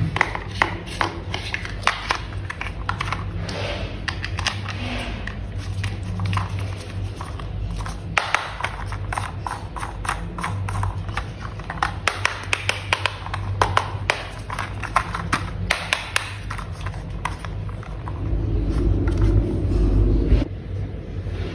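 Hard plastic toy parts clicking and tapping as they are handled and fitted together, in many short irregular clicks. A louder low rumble lasts about two seconds near the end.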